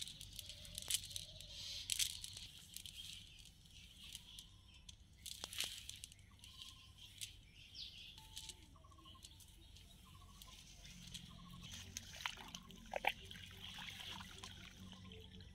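Rustling and clicking of a cast net being gathered and sorted by hand, the mesh and its weighted edge knocking together in short, irregular bursts.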